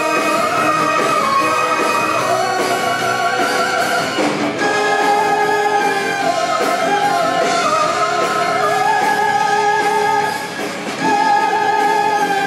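A female singer sings long held notes with vibrato in an operatic musical-theatre style over a live orchestra, amplified through the hall's sound system. The music drops briefly about ten seconds in, then the voice comes back in full.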